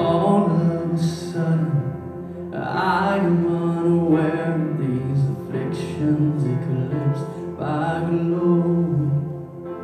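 Slow worship song: a singer holding long notes over steady instrumental backing.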